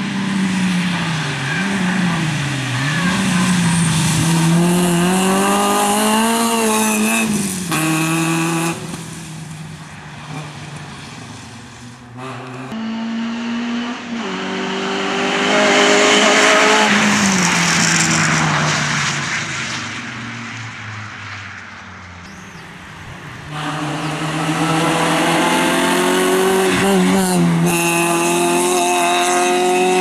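Peugeot rally cars' four-cylinder engines revving hard on a stage, the pitch climbing and dropping with gear changes and lifts as the cars pass, in three separate passes split by cuts. The loudest pass, about halfway through, carries a hiss of spray off the wet road.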